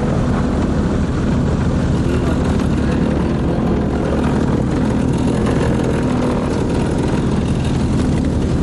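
Steady engine drone heard from inside a moving vehicle, a continuous low hum with road or air noise.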